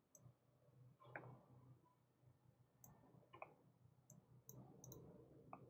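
A handful of faint, scattered computer mouse clicks over quiet room hum.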